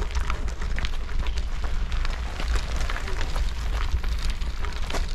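Footsteps crunching on a crushed-stone trail, with wind rumbling on the microphone.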